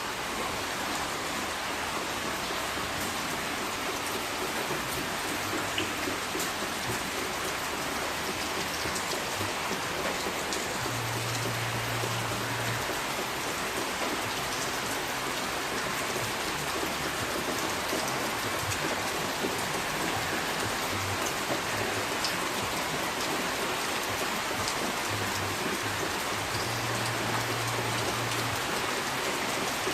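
Steady rain falling: an even, continuous hiss with scattered small ticks of drops.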